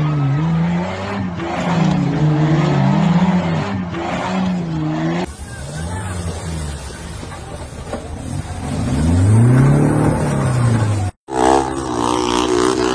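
Off-road vehicle engines revving hard across quick-cut clips, the revs swinging up and down repeatedly. A 4x4's engine then climbs to a high rev and falls back. After a brief dropout, a steadier engine drone follows.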